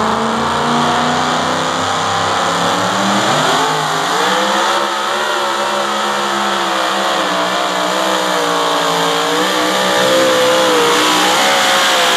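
Supercharged engine of a Super Modified two-wheel-drive pulling truck. It runs at lower revs on the sled, then rises sharply in pitch about three and a half seconds in as the truck launches. It is then held at high revs under load through the pull, the pitch wavering up and down.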